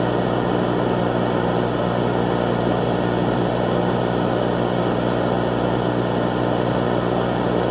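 A loud, steady buzzing drone mixed with static noise, with no change in pitch or level, like broadcast interference.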